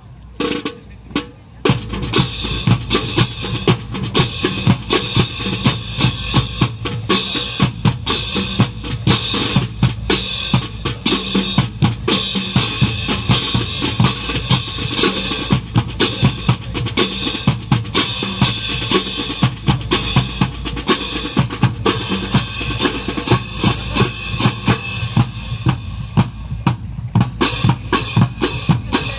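Drum-led music with a steady, fast bass-drum and snare beat. Two single hits come first, and the beat starts in earnest about two seconds in.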